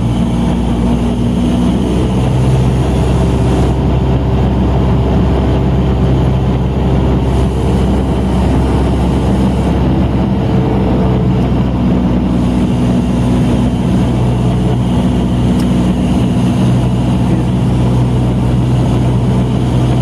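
Cessna 172's piston engine and propeller droning steadily in flight, heard from inside the cabin.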